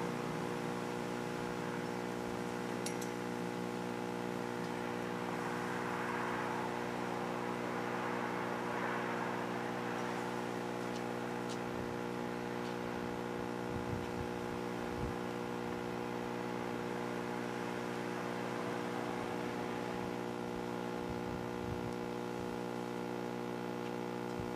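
Steady electrical hum with a stack of buzzing overtones, unchanging in pitch and level throughout, with a few faint low thumps now and then.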